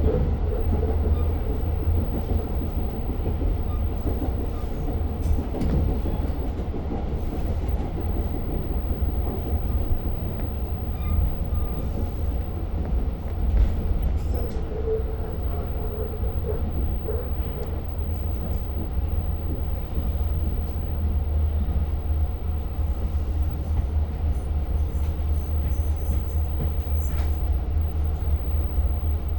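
Steady low rumble inside a passenger car of a Long Island Rail Road diesel train on the Oyster Bay branch, with scattered small clicks and knocks.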